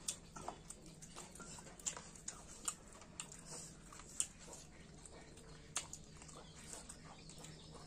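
Eating sounds: faint chewing and mouth smacks, heard as a dozen or so irregular sharp clicks, over a steady low hum.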